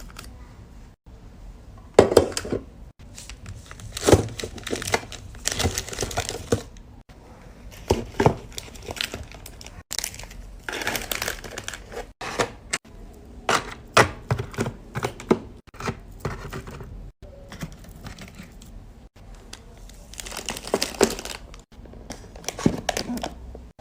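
Plastic candy and snack wrappers crinkling and rustling in irregular bursts as packets are handled and arranged in a drawer, with small sharp knocks and clicks between them.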